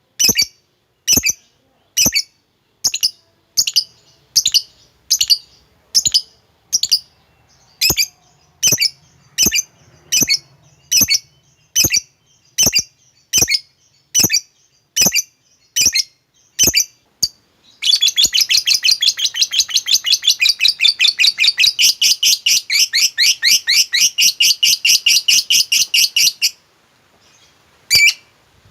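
Lovebird calling with sharp, high chirps a little over once a second, then about eighteen seconds in breaking into a long, rapid chattering trill lasting about eight seconds: the 'ngekek' song that keepers prize. Two more single chirps follow near the end.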